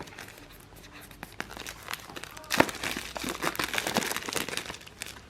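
Plastic wrap being torn and crinkled off a product box: a run of irregular crackles and rustles that grows louder and busier about two and a half seconds in.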